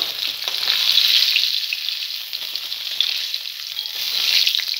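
Fish pieces frying in hot mustard oil in a kadhai: a steady sizzle with fine crackling.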